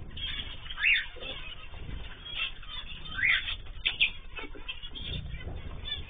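A flock of small aviary birds, zebra finches and canaries, chirping in short separate calls, with wing flutters as they land on and leave a hand.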